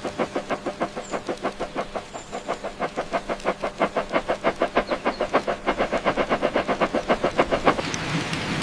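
A train running along the track with a fast, even clatter of about five beats a second that grows louder; near the end the beats give way to a steady hiss.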